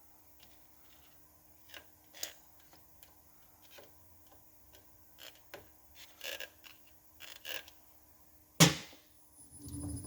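Scattered light metal clicks and clinks of tools being handled during tapping setup, with one sharp knock near the end. A motor starts to hum steadily just before the end.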